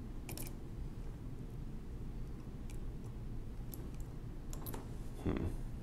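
Small steel pick and screwdriver scraping and clicking against a split wire retaining clip in the steel works of a 1920s Monroe Model K mechanical calculator as it is levered open. The clicks are faint and scattered, over a steady low hum.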